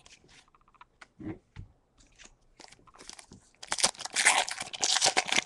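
Foil wrapper of a Pokémon TCG booster pack crinkling and tearing as it is ripped open: a loud, dense crackle from about three and a half seconds in. Before it come soft clicks and slides of trading cards being flipped.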